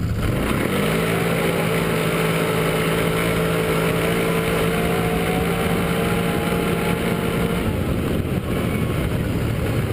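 Can-Am Outlander 800R ATV's V-twin engine revving up at the launch of a drag run and holding a steady high pitch at full throttle for several seconds, then falling away near the end.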